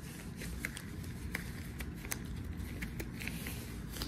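Blue disposable exam gloves being pulled onto the hands: faint rustling with scattered small snaps and clicks over a steady low room hum.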